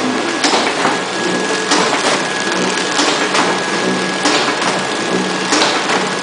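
Pillow packaging machine running while it wraps rolls of adhesive tape in plastic film: a steady mechanical clatter with a faint high whine, and sharp clacks in pairs about every second and a quarter as the machine cycles.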